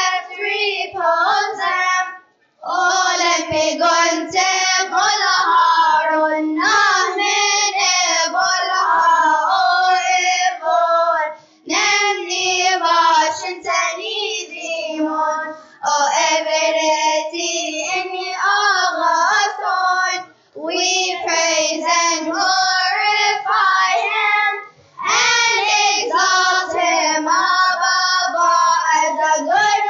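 Children's choir of third- and fourth-graders singing unaccompanied, several of them into handheld microphones. The singing breaks off briefly between phrases a few times.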